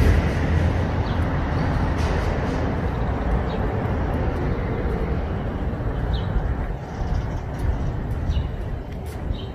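Street traffic: a vehicle passing, its noise easing off slowly over several seconds, with a few short high chirps on top.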